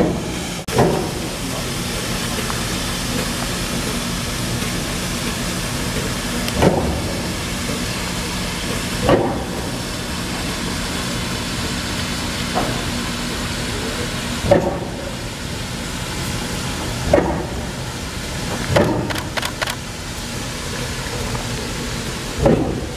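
Norfolk & Western Class J 611 steam locomotive standing under steam: a steady hiss of escaping steam over a low steady hum. A short sharp thump comes every few seconds, six in all.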